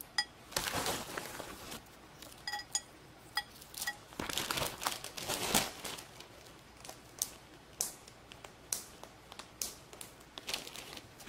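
Plastic bag crinkling and rustling in several bursts while fried beans are shaken into a ceramic bowl, with a few light ringing clinks against the bowl.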